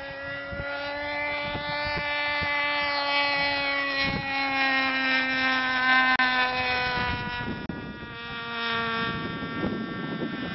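Engine of a radio-controlled model Bonanza airplane running at a steady high pitch, then fading out about seven seconds in.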